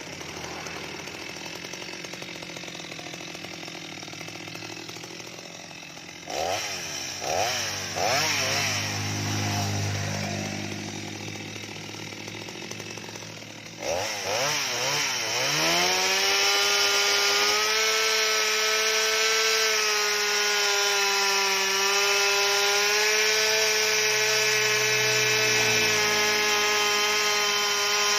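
Stihl MS 230 two-stroke chainsaw idling, then blipped up three times in quick succession. About halfway through it revs up to full throttle and holds a high, steady pitch as the chain cuts into the mango trunk.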